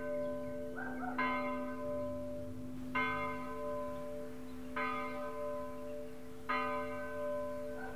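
A church bell tolling: one bell struck slowly and evenly, about four strokes, each ringing on into the next.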